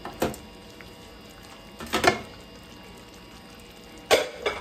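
Thick mole sauce simmering in a frying pan, plopping as bubbles burst: three separate short pops, roughly two seconds apart.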